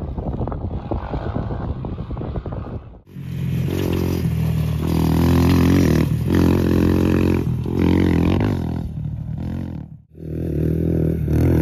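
Dirt bike engine revving up and down repeatedly as it is ridden, loud and close, after about three seconds of wind buffeting the microphone. The engine sound breaks off briefly about ten seconds in and comes straight back.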